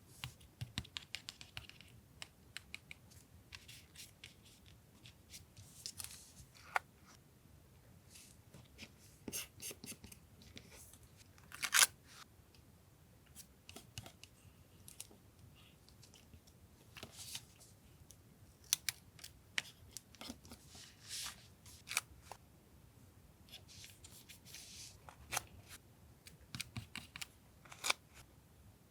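Paper-crafting sounds of journal collage: scissors snipping and paper being cut, torn and handled, in scattered short clicks and rasps, with one louder sharp one about twelve seconds in.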